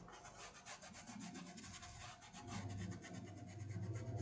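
Soft, quick rubbing strokes of a small paintbrush working paint into cotton fabric, faint and rapidly repeated. A low steady hum comes in about halfway through.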